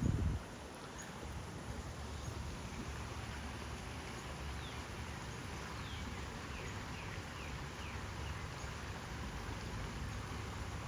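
Steady rush of flowing creek water with a low rumble underneath. About halfway through, a bird gives a quick run of short, high, downward-sliding chirps.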